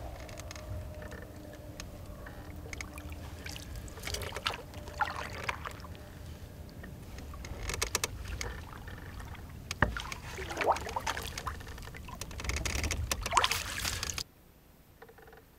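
Small flat-bottomed boat moving slowly through calm water, with water lapping at the hull and occasional splashes and knocks over a low steady rumble. The sound cuts off suddenly near the end.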